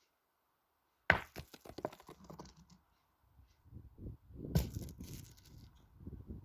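Two pétanque shots about three and a half seconds apart. About a second in, a thrown boule strikes with a sharp metallic clack, followed by a run of smaller knocks as the boules clatter. A second, heavier impact comes near the middle, with a longer spell of clattering after it.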